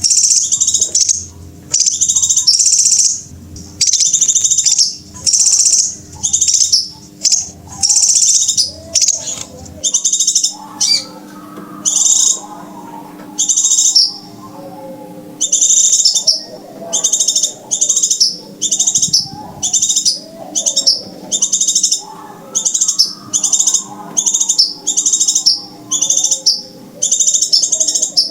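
Crimson sunbird calls: short, high, sharp chirping phrases repeated about once a second. From about ten seconds in, fainter lower twittering sits under them.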